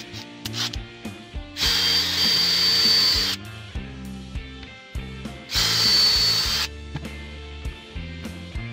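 Handheld power drill running in two bursts, about two seconds and then about one second long, with a high whine, drilling screw holes into a wooden workpiece.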